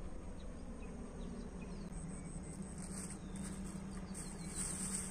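Steady high-pitched insect chorus, growing louder from about two seconds in, over a low steady hum.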